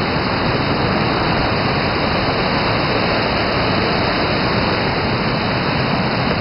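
Waterfall on a mountain stream: water falling over rocks in a loud, steady rush.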